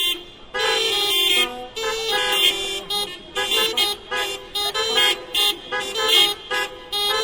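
Several car horns sounding in a hocket, each horn a different pitch, trading off. A blast of about a second comes half a second in, then a string of short honks follows in quick succession, growing faster toward the end.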